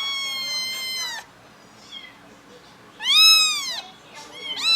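Puspin kittens meowing in high, clear calls: a long meow ending about a second in, a shorter rising-and-falling meow about three seconds in, and another starting near the end.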